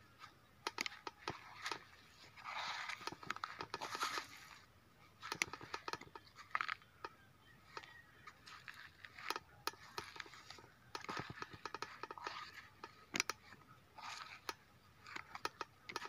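Quiet footsteps crunching and scraping on gritty, rocky ground, coming in irregular patches with scattered light clicks between them.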